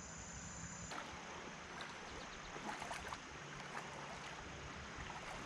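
Creek water running steadily, a faint even rush.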